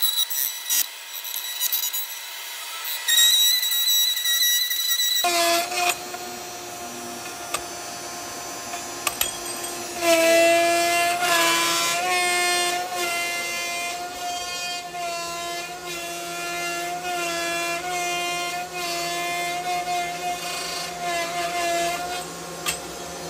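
CNC machine cutting metal: a steady pitched whine with several overtones, changing abruptly about five seconds in.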